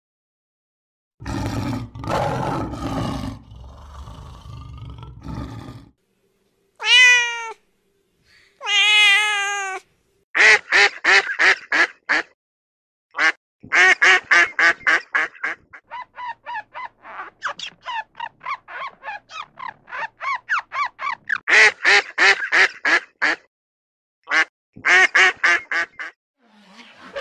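Domestic ducks quacking in quick runs of short, repeated calls, several a second, making up most of the sound. Before them come a few seconds of noisy rumbling and two drawn-out honking calls.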